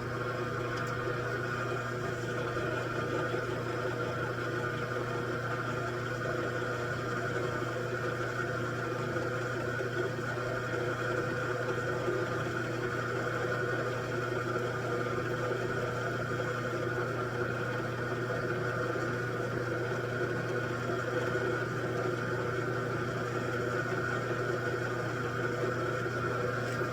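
Machine tool running steadily, a constant motor hum with a few fixed whining tones and no change in load.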